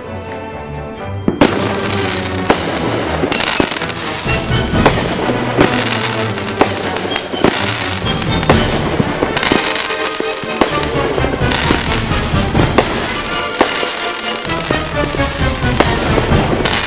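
Fireworks going off in rapid succession: many sharp bangs and crackles, packed densely from about a second in onward, over music playing throughout.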